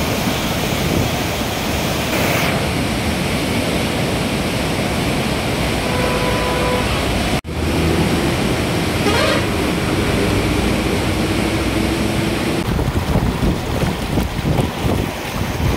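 Floodwater rushing through a river barrage, a dense steady roar mixed with wind on the microphone. A vehicle horn toots briefly about six seconds in, and the sound cuts out for an instant about a second later.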